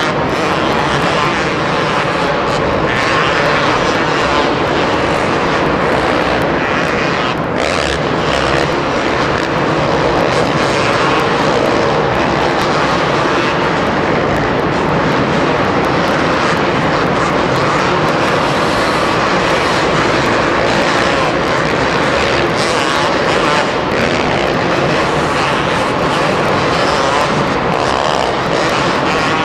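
Two-stroke motocross bikes running hard around a supercross track, engines revving continuously in a loud, steady din.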